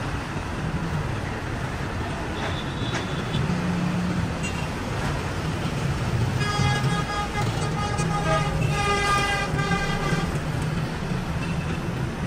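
Road traffic noise with a vehicle horn sounding for about four seconds in the second half, its pitch changing once partway through.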